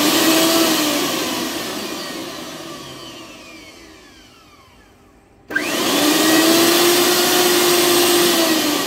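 A Bosch TrueMixx Pro 1000-watt mixer grinder motor spinning with no jar fitted. It starts at full speed, then coasts down over several seconds with falling pitch. About five and a half seconds in it is switched on again, runs steadily at speed, and begins winding down near the end.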